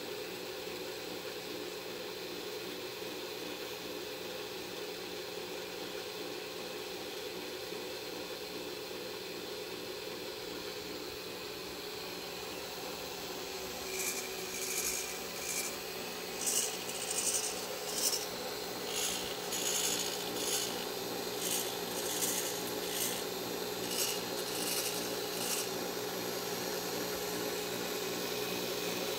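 Power drill turning a threaded-rod capstan with a steady hum. About halfway through comes a run of a dozen or so short, high, hissy bursts as micro servos pull Dyneema cables against the turning capstan.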